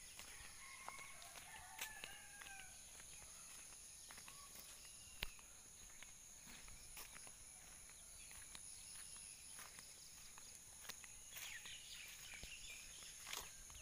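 Faint rural morning ambience: distant birds calling, a few soft footstep clicks, and a steady high-pitched hiss throughout.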